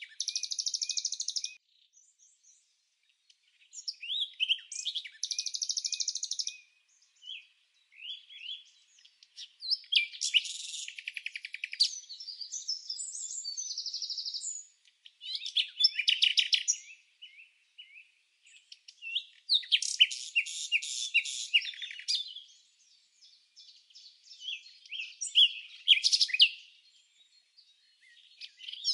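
A wren singing in about seven bursts of high, fast, trilling song, each lasting one to five seconds, with short pauses between them.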